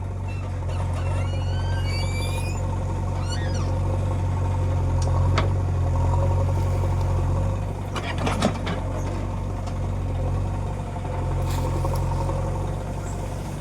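Heavy-equipment diesel engine running steadily with a deep, even hum. A few sharp metallic knocks come partway through, the clearest cluster a little past the middle.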